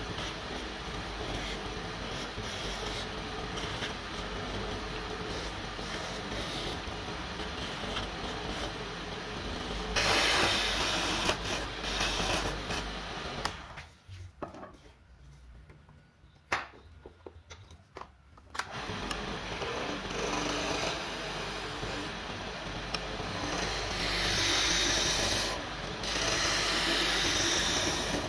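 Small wood lathe running while sandpaper is held against the spinning mahogany handle, a steady rough rubbing that gets louder in stretches as the pressure increases. About fourteen seconds in, the lathe stops for roughly four seconds and then runs again.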